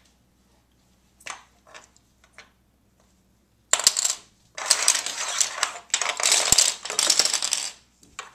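Small plastic toy letters clicking a few times, then clattering and rattling over a wooden floor for about four seconds as a child's hands sweep and scatter them.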